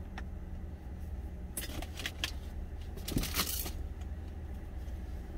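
Stainless steel lunch container clinking and clattering as it is handled and put away: a light click at first, then two short bursts of metal clatter in the middle. A steady low hum, as of the truck's idling engine, runs underneath in the cab.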